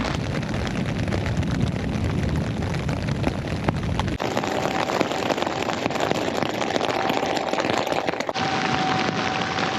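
Heavy rain pouring down, a dense hiss of drops pelting. A deep rumble under it cuts off suddenly about four seconds in.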